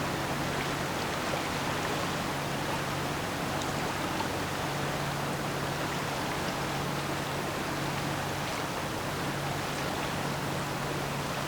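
Steady low hum of a passing lake freighter's engine under an even, steady rushing wash of water and wind.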